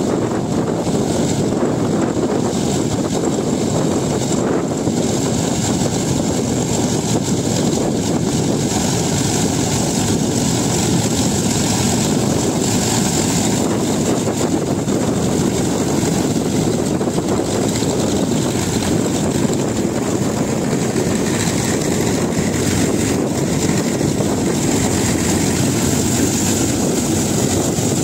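Satnam 650 tractor-mounted mini combine harvester running while cutting wheat: the tractor engine and harvesting machinery make a loud, steady, unbroken drone.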